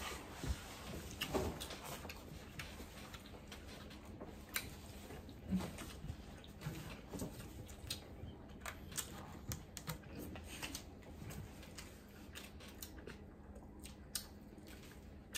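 Quiet eating sounds at a table: scattered light clicks and taps of forks on plastic plates and takeout containers, with chewing.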